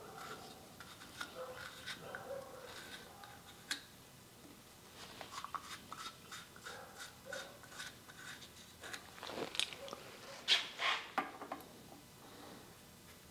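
Scattered light clicks and small metal knocks of hydraulic hose fittings being handled and fitted to a valve block, with a few louder knocks about ten to eleven seconds in.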